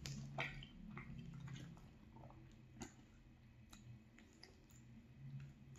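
Faint, soft chewing of gravy-soaked poutine fries, with scattered small clicks.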